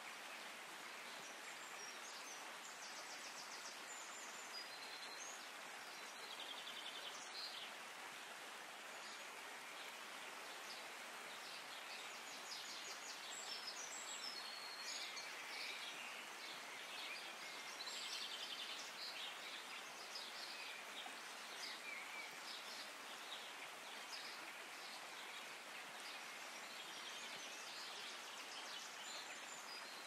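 Shallow rocky stream running over stones, a steady rush of water, with small birds singing short high trills now and then.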